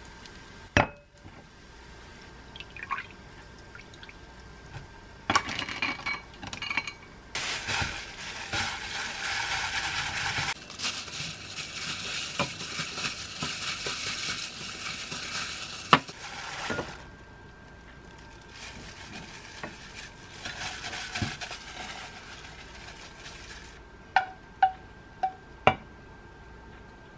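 A wooden spoon stirs sauce in a glass mixing bowl, with sharp clinks against the glass. Then tofu noodles are tossed in the sauce by gloved hands, a long stretch of plastic-glove rustling and mixing noise. Near the end come four sharp clinks of chopsticks on a ceramic bowl.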